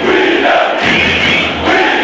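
Large stadium crowd of football supporters chanting together in unison, in a steady repeating rhythm with a new phrase about every second.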